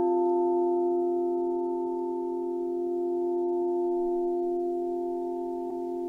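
Singing bowls ringing, several steady tones sounding together and sustaining after a strike just before, the level slowly swelling and easing.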